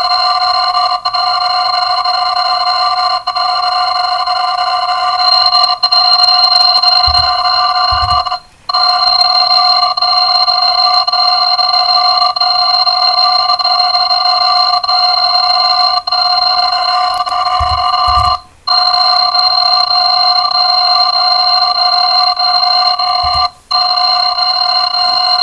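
Alarm sound effect played back greatly sped up, so that it runs together into a continuous ringing buzz of several steady pitches. It breaks off for a moment three times: about a third of the way in, about two-thirds of the way in, and near the end.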